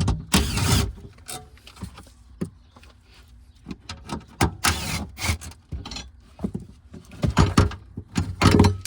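Hands and tools working around a car battery compartment: irregular clicks, knocks and short scraping and rustling noises as a cover is popped off and parts are moved aside.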